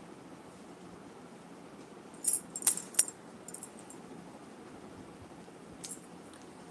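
Bangles on a wrist clinking and jingling in a few quick clusters about two seconds in, with one more short jingle near the end, over a steady low hiss.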